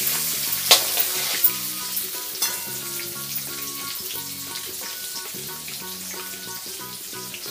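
Peanuts, green chillies and crushed garlic sizzling in hot oil in a metal kadhai. A slotted spoon scrapes and clicks against the pan in the first couple of seconds, then the sizzle carries on alone. Soft background music with held notes plays underneath.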